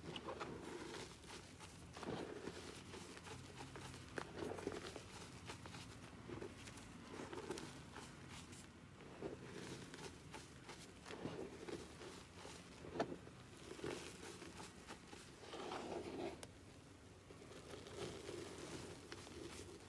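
Hands squeezing, crumbling and sifting powdery gym chalk: soft, irregular crunches and rustles, with a sharper crack about thirteen seconds in.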